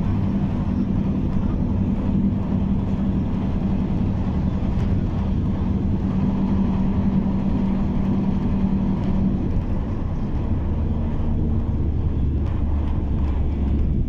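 Car driving along a road, heard from inside: steady engine and tyre hum. About ten seconds in the hum drops to a lower pitch.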